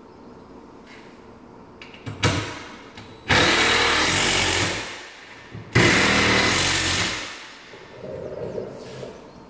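Cordless drill driving screws into a 2x4 wooden frame: a short burst about two seconds in, then two long runs of about a second and a half each, each tailing off as the screw goes home.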